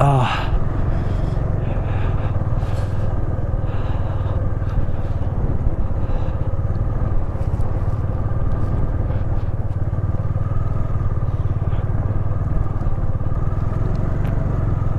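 Bajaj Dominar 250 single-cylinder motorcycle engine running steadily while riding, with a short downward sweep in pitch right at the start.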